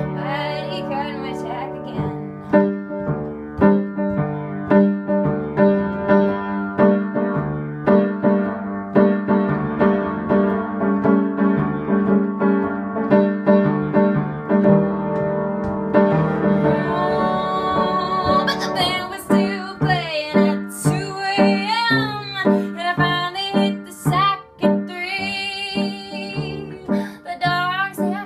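A woman playing piano in steady, repeated chords, and singing along over it; her voice comes in strongly about halfway through.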